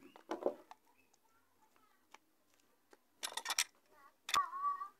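A cut lime half squeezed by hand over a plastic cup, with a short wet crackling squelch about three seconds in and a sharp click just after. A brief high-pitched call follows near the end.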